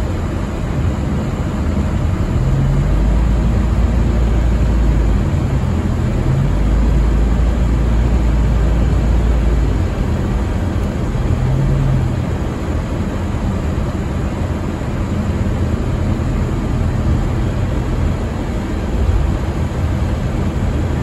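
Steady road noise inside a moving car on a rain-soaked road: a low rumble under an even hiss of tyres on wet pavement, heaviest for several seconds a few seconds in.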